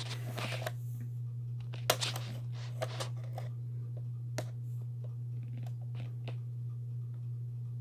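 Scattered light clicks and rubs of a plastic VHS cassette being handled over its clamshell case, over a steady low hum.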